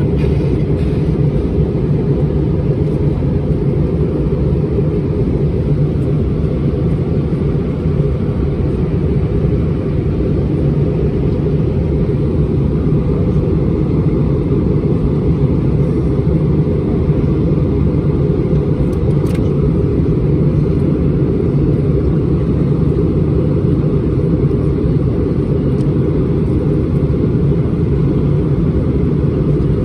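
Steady rumble inside the passenger cabin of an Airbus A320-231 airliner, the drone of its IAE V2500 engines and the rush of air along the fuselage, unchanging and deep.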